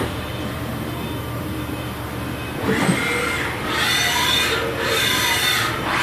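2001 Haas VF-3 CNC vertical machining center running with a steady hum. From about two and a half seconds in come several whines that rise and fall in pitch, one after another.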